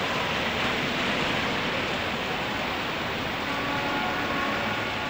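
Steady industrial and traffic noise, an even rushing hum with no breaks. A faint steady whine joins it in the second half.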